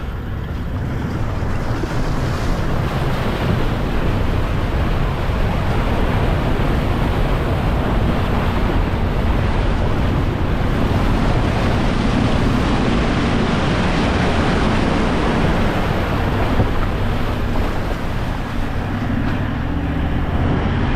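Vehicle driving on a dirt road: a steady, loud rumble of tyres and road noise with no engine note standing out.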